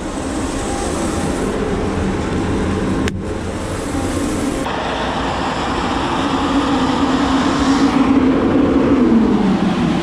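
Grain bin machinery running steadily, its sound changing abruptly a few seconds in; near the end a motor hum falls in pitch as the corn spreader is switched off and winds down.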